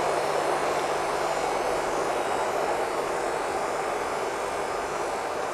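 Steady rushing rumble of a train rolling along, slowly fading as it moves away.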